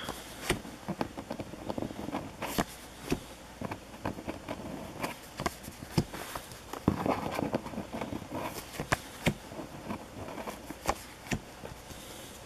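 Panini hockey stickers being flipped through by hand: soft paper rustling with irregular sharp clicks and taps as each sticker is slid off the stack and tucked behind the others.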